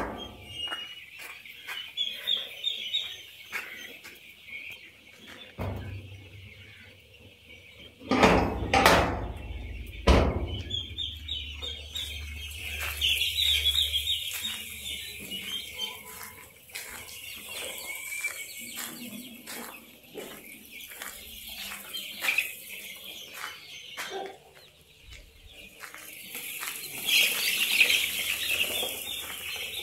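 A flock of native country chickens (nattukoli) clucking and peeping in rapid high chirps throughout. There are a couple of loud knocks about eight and ten seconds in.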